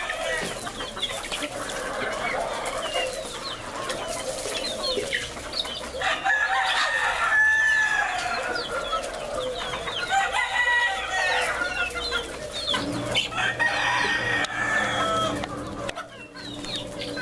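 A flock of chickens clucking and calling with many short chirps, and a rooster crowing about six to eight seconds in.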